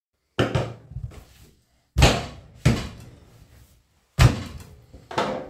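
About five separate dull knocks and thumps on a wooden cutting board as a slab of raw pork belly is handled and turned over on it, each stroke dying away quickly.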